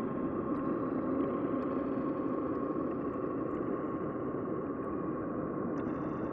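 Steady ambient drone soundtrack: a dense, even rushing wash with a faint held tone above it and a few faint high ticks, with no beat or melody.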